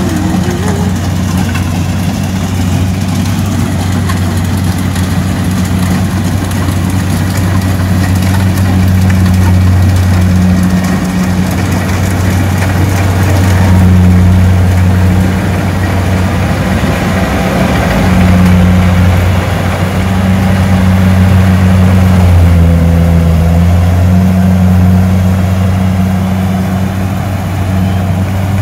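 An engine running steadily with a low, even hum, its loudness swelling and easing slightly over the stretch.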